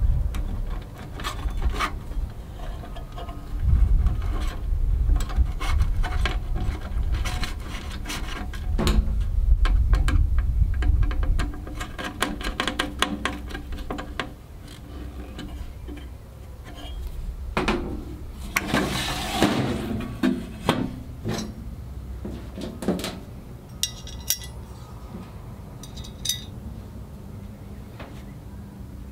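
Stainless steel grill parts being handled and fitted together: scattered metal clicks, taps and clinks, with a longer rubbing scrape about two-thirds through and a few ringing clinks near the end.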